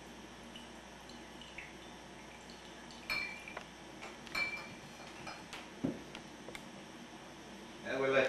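Liquid dripping and trickling through a plastic funnel into a glass bottle, with a few light glass clinks from about three seconds in and a dull knock near six seconds as the mason jar and bottle are handled.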